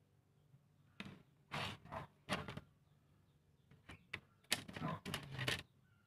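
Handling noise: a run of short rustles and knocks, in two clusters, as a small soldered circuit board is set down on a table and a hand moves close over the recording phone.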